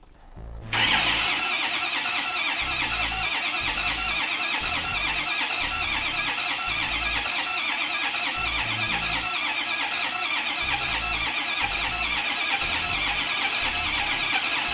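Starter motor cranking the 6.0 L Power Stroke V8 diesel of a 2005 Ford F-250, starting about a second in and running steadily with a low uneven pulsing. The engine turns over but never fires: a no-start, which in this truck is traced to a failed high-pressure oil pump.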